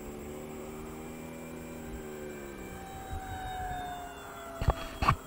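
Twin electric ducted fans of a Free Wing A-10 Warthog RC jet whining in flight, the pitch slowly falling. Near the end two sharp knocks, louder than the jet.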